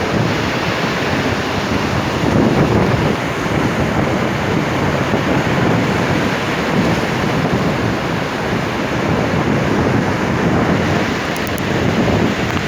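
Sea waves washing on a shore with wind buffeting the microphone, a steady rushing noise that swells and eases.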